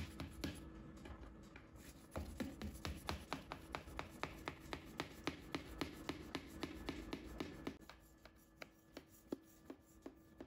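Knife cutting through a baked chocolate cake in an aluminium baking tin: a quick run of light ticks and scrapes, about three or four a second, as the blade saws and touches the tin, growing sparser after about eight seconds.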